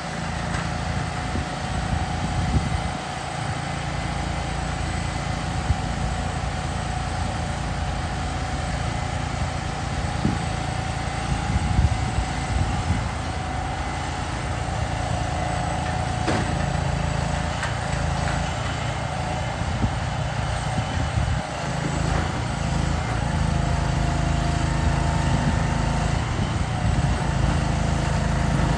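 Diesel engine of a flatbed truck running steadily, with a higher steady whine over it and a few short knocks, as the PODzilla lift frame is moved onto the truck bed. The engine gets louder near the end.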